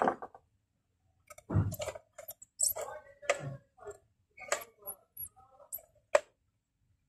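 A series of irregular sharp clicks and knocks, about a dozen of them spread unevenly over several seconds.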